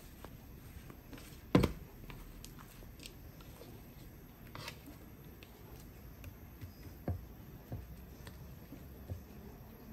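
Spatula scraping cake batter from a mixing bowl into a metal tube pan, with soft scrapes and scattered light knocks of the spatula against bowl and pan; the loudest knock comes about a second and a half in.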